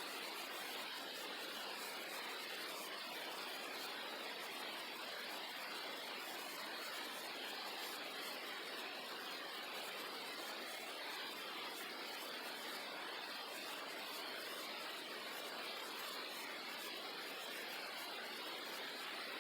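An old 2000s computer giving off a steady, unchanging hissing noise, the weird noise it has started making.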